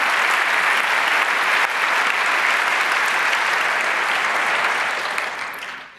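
Large audience clapping, a dense steady round of applause that fades away near the end.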